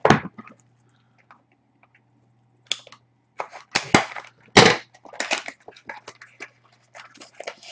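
Plastic shrink-wrap on sealed trading-card boxes being slit with a box cutter and pulled off: irregular crinkling and scratching with sharp clicks, starting after a couple of quiet seconds, the loudest click about four and a half seconds in. A faint steady hum underneath.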